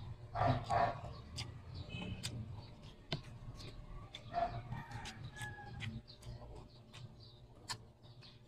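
Several short animal calls, bird-like, the loudest about half a second in. Close, sharp clicks and smacks of eating by hand run between them.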